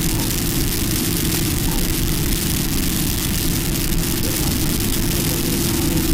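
Airbus A320 cabin noise while taxiing: the jet engines at low power give a steady hum with one held tone, over an uneven low rumble.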